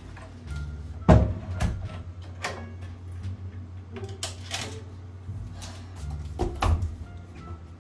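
Apartment entry door shut with a sharp thud about a second in, followed by metallic clicks of the deadbolt being turned and a few more knocks and clicks near the end, over a steady low hum.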